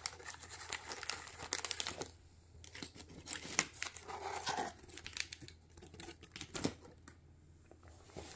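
Plastic cat-treat packet being crinkled and pulled open by hand: a quick run of crackles and rustles over the first two seconds, then scattered sharper crinkles.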